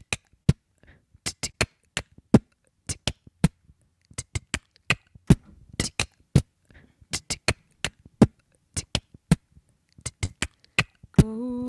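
A woman beatboxing into a microphone: a rhythm of sharp mouth clicks and pops, laid down on a loop pedal as a backing beat. Near the end a short held sung note starts.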